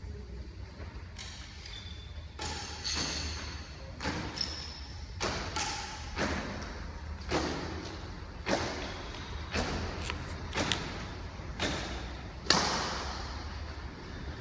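Badminton rally: a shuttlecock struck back and forth with rackets, sharp hits about once a second with a short echo after each in a large hall. The loudest hit comes about twelve and a half seconds in.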